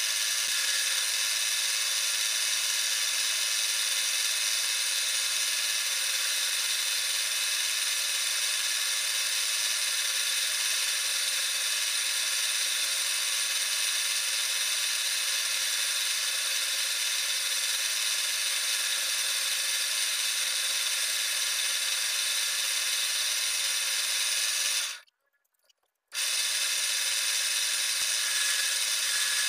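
Wood lathe running, with a hand-held turning tool cutting a spinning wooden spindle: a steady mechanical whine and scraping hiss. The sound cuts out for about a second near the end.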